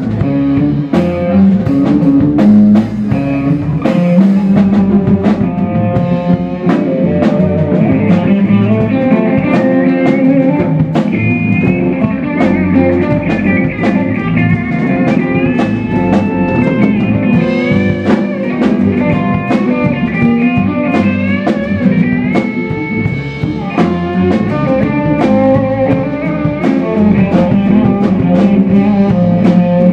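Live blues band playing an instrumental passage: a lead electric guitar plays a line with bent notes over a steady drum kit.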